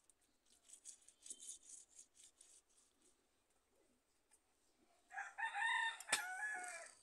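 A rooster crows once, a loud drawn-out call about five seconds in. Before it comes a run of soft, rasping scrapes, small fish being rubbed and scraped on a stone.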